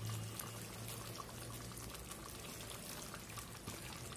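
Spicy fish curry simmering in a pan, a steady bubbling made of many small pops, over a low steady hum.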